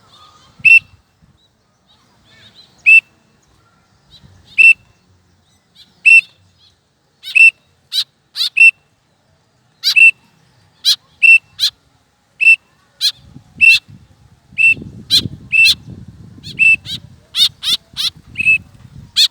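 A bird giving short, sharp, piercing calls over and over, spaced out at first and then coming faster, about two a second near the end.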